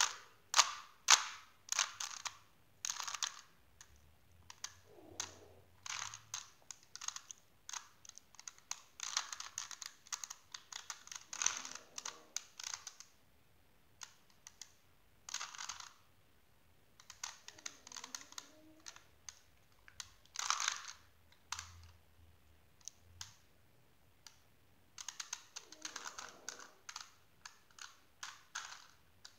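A 3x3 Rubik's cube being turned by hand: bursts of quick plastic clicking and clacking as the layers rotate, broken by short pauses.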